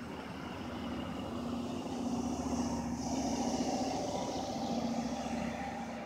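Motor vehicle noise: a steady engine hum, with engine and tyre noise that swells to its loudest in the middle and eases off near the end.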